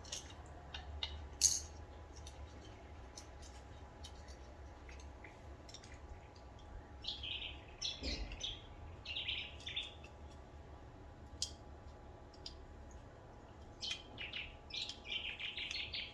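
Small birds chirping in short bursts, twice in the middle and again near the end, over light scattered clicks and taps, with one sharper click about a second and a half in.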